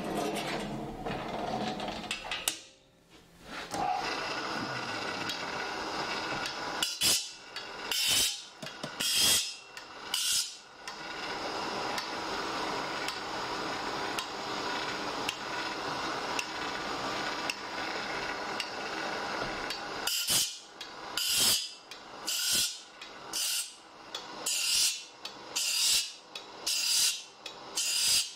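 Saw-sharpening machine running with a steady motor hum, its grinding wheel grinding the teeth of a clamped straight saw blade one by one: a few separate strokes early on, then from about two-thirds in a regular rhythm of grinding strokes a little more than once a second.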